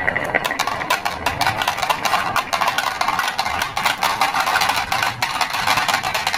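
Glass marbles rolling down a carved wooden zigzag track: a dense, continuous run of rapid clicks and clacks as they knock against the wooden channel walls and each other, dropping into a plastic toy truck bed.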